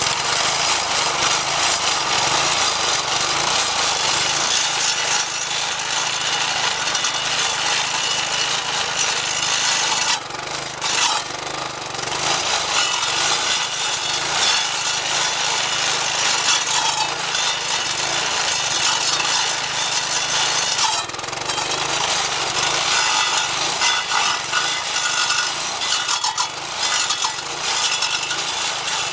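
Homemade stump grinder built from a lawn edger: its Briggs & Stratton 4.5 hp vertical-shaft engine runs under load while the 10-inch carbide-tipped saw blade grinds into a hard mulberry stump. A steady harsh grinding rides over the engine's drone, easing briefly about ten and twenty-one seconds in.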